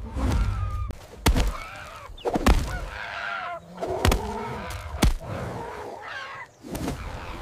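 Fight sound effects: a rooster squawking in wavering calls, punctuated by about five sharp thuds.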